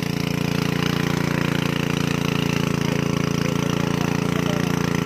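An engine running steadily at an even speed, with a low, rapid chugging.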